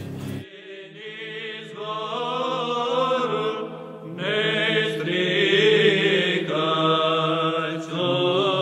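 Background music: a monastic choir of men's voices singing Orthodox chant in slow, sustained phrases.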